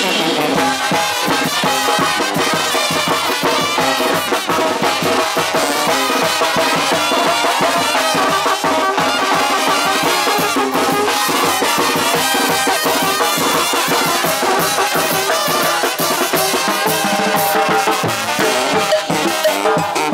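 Live Mexican banda brass band playing: trumpets, sousaphones and baritone horns over drums and crash cymbal, in a steady, loud dance rhythm.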